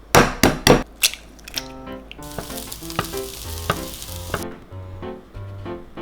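Four sharp knocks in quick succession in the first second, then light piano background music, with food sizzling in an oiled frying pan for about two seconds in the middle.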